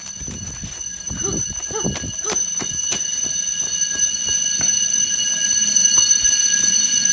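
Fire alarm sounding during a system test: a steady, high-pitched alarm tone that gets steadily louder. A few faint clicks and knocks come in the first half.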